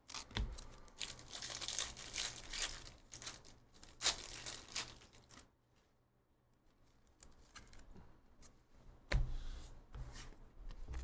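Stack of chromium trading cards handled and flipped through by hand: soft rustling and sliding of card against card with small clicks, a pause of a second or two around the middle, then a few sharper clicks near the end.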